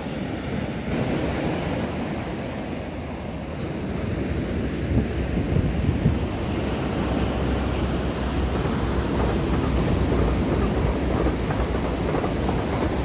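Sea waves washing onto the beach, with wind buffeting the microphone. A low rumble builds from about four seconds in.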